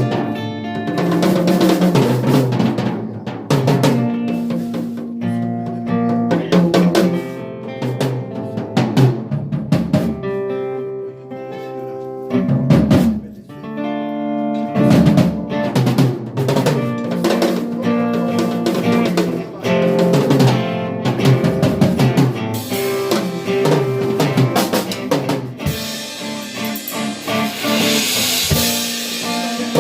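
Live band music led by a drum kit, with snare, bass drum and rimshot hits over held pitched chords. Cymbals wash loudly over the last few seconds.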